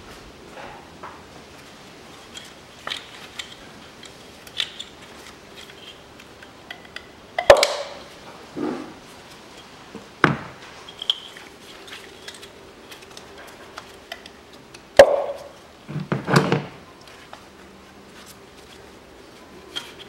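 Scattered knocks and clatter of hands working on parts in a car's engine bay, with a handful of sharp knocks, the loudest about seven and a half and fifteen seconds in.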